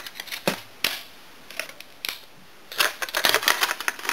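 Stiff plastic packaging tray clicking and crackling as a case is pried out of it. There are a few separate clicks, then a rapid flurry of clicks and crackles near the end.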